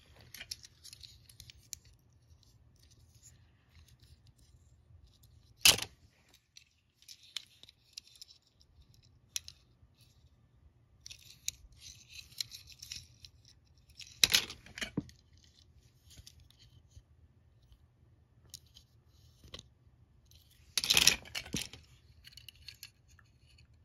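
Loose die-cast toy cars being handled and rummaged from a cardboard box: scattered clicks and light rustling, broken by three sharper clinks of metal and plastic knocking together, the last a short clattering cluster.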